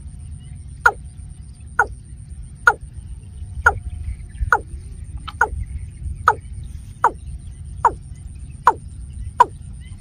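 Watercock call: a short falling note repeated evenly about eleven times, a little more than once a second, over a low steady rumble.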